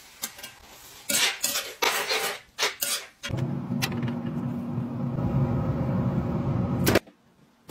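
Metal utensils clattering against metal cookware in a quick series of knocks, then a steady hum for about four seconds that cuts off suddenly.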